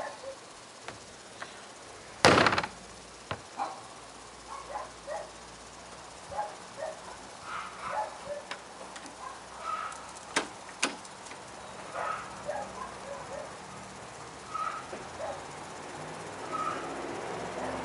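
The lid of a plastic wheeled trash cart slams shut once, about two seconds in. Faint short sounds and a couple of sharp clicks follow, scattered through the rest.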